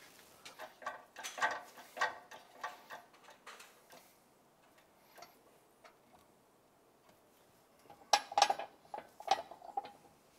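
Light metallic clicks and taps as a steel seal driver is set and shifted on the seal and metal flange housing on a press plate, ahead of pressing the seal in to depth. A scatter of clicks comes in the first few seconds, and a louder run of ringing metal clinks comes near the end.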